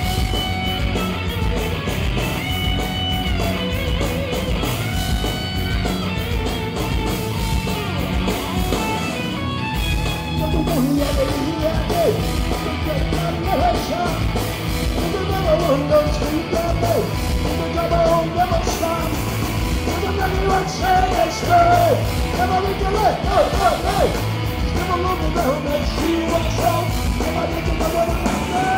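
Live punk rock band playing loud, with distorted electric guitars, bass and drums. After a brief break just under ten seconds in, a singer shouts the vocals over the band.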